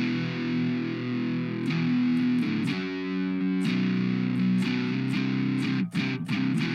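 Electric guitar played through an Orange Fur Coat germanium-diode octave/fuzz pedal, giving a distorted vintage fuzz tone. It plays a riff of picked notes with one note held for about a second in the middle, then breaks off briefly near the end before playing on.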